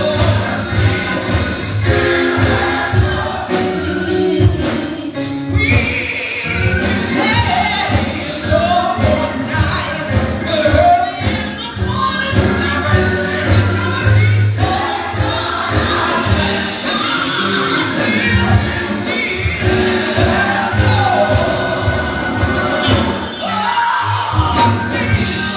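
Live gospel music: a choir singing with a band, with a steady beat and bass.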